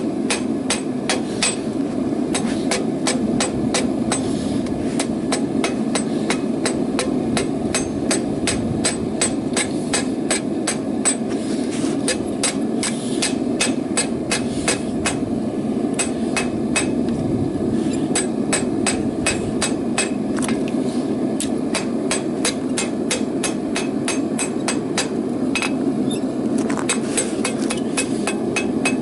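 Blacksmith's hammer striking hot rebar on an anvil in a steady rhythm of about two to three blows a second, with a few short pauses. A steady low rushing noise runs underneath.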